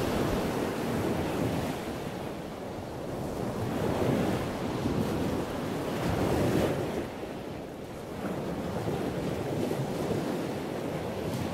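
Ocean surf: waves breaking and washing up a sandy beach, rising and falling in slow swells a few seconds apart.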